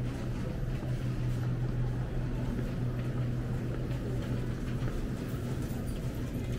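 Steady low hum and road noise of a car driving, heard from inside the cabin.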